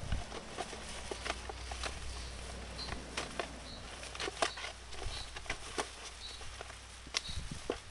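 Irregular light crackles and clicks over a steady low rumble, with a faint short high peep repeating every second or so from about three seconds in.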